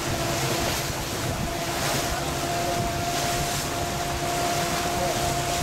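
A boat's motor running steadily under way, a constant hum, with wind buffeting the microphone and water rushing past the hull.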